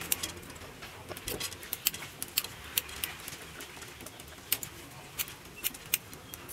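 Scissors snipping through bunches of soaked glass noodles: a run of short, sharp clicks at an irregular pace of about two a second.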